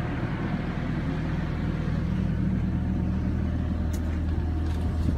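Excavator engine running steadily with an even low hum, powering the hydraulic drive head used to screw in helical piles.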